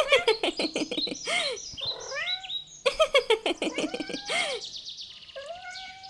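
Birdsong sound effect: rapid chirps and whistling calls, the same sequence starting again about halfway through, with a few rising tones near the end.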